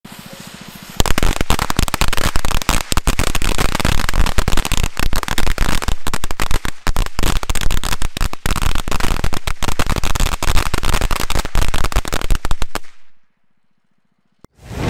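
Klasek K500R firecracker carpet of 500 shots: the fuse fizzes for about a second, then the firecrackers go off in a rapid, unbroken string of bangs for about twelve seconds and stop abruptly. A loud boom starts just at the end.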